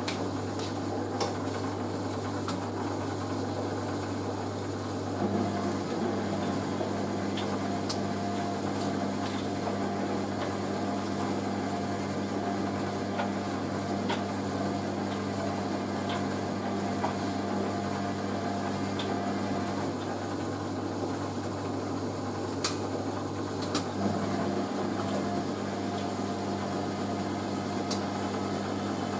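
Hoover A3060 Electronic 1100 washing machine running its drum at distribution speed ahead of a spin. A steady motor hum runs throughout; a higher hum in it drops out and comes back twice, and a few light clicks sound over it.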